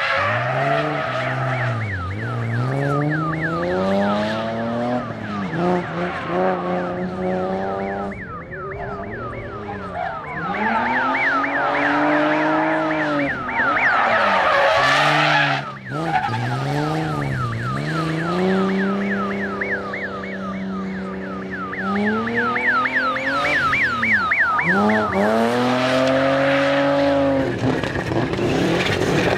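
Rally car driven hard: the engine's revs climb and drop again and again with gear changes and lifts off the throttle, over a fast run of short high chirps.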